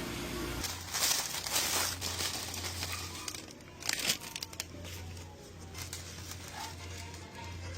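Irregular rustling and crinkling of something being handled, over a steady low hum.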